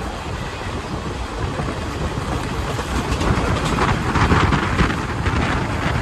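Garib Rath Express coaches running at speed, heard from the open coach door: a steady rumble of wheels on rail with wind on the microphone. The wheel-on-rail clatter grows louder about halfway through.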